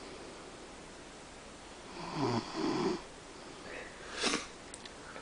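A man sleeping off heavy drinking, snoring: one rough snore in two pulls about two seconds in, then a short sharp sound about four seconds in.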